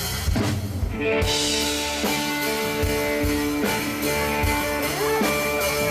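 A live band playing an instrumental passage: held guitar and keyboard chords over a drum kit, with the kick drum landing about once a second.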